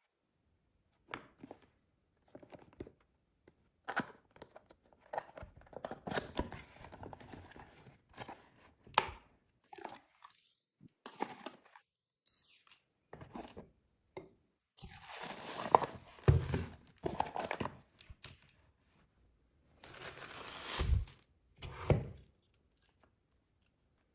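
Product packaging being handled and opened: irregular crinkling, rustling and tearing with small knocks, and two longer, louder tearing stretches, one past the middle and one near the end.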